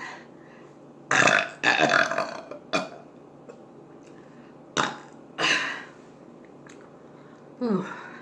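A person burping loudly and on purpose several times after a big meal: a long burp about a second in, another around five and a half seconds, and a shorter one falling in pitch near the end, with a couple of short sharp clicks in between.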